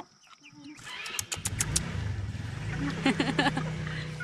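A motor engine starting up about a second in, rising in pitch and then running steadily, with a run of sharp clicks as it starts.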